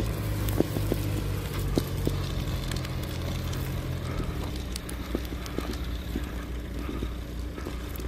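Fire truck's engine running with a steady low hum as it pumps water, growing fainter about halfway through as the truck pulls away, with scattered sharp clicks over a steady hiss.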